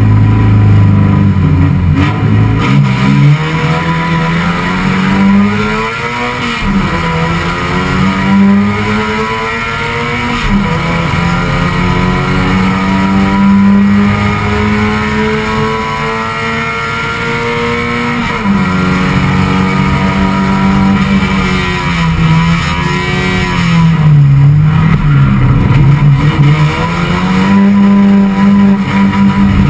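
Race car engine heard from inside the cockpit, held at high revs, its pitch climbing in each gear and dropping sharply at the gear changes. Near the end the revs dip and rise again several times, as on downshifts through a corner.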